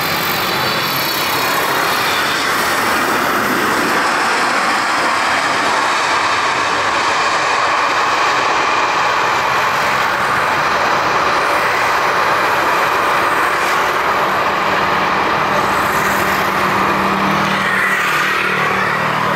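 Boeing 777-300ER's twin GE90-115B turbofan engines running loud and steady as the airliner rolls out along the runway just after touchdown.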